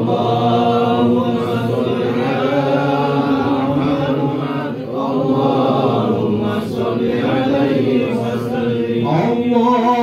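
A group of men chanting sholawat, praise of the Prophet Muhammad, together, many voices blending into one continuous drawn-out chant.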